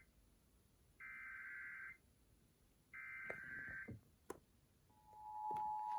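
Emergency Alert System SAME header: two one-second bursts of buzzy, warbling digital data tones about a second apart, carrying the coded flash flood warning. About five seconds in, the steady two-tone EAS attention signal begins and swells in level.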